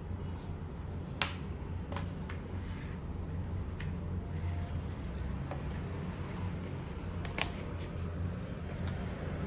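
Blu-ray packaging being handled: light rustling of plastic and paper with a few sharp clicks, the loudest about a second in and again near the end, over a steady low hum.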